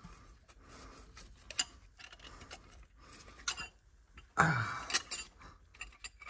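Light metallic clinks and ticks of a connecting rod and its spun bearing being handled on the crankshaft inside a stripped diesel engine block. About four and a half seconds in, a short louder sound with a low falling pitch stands out.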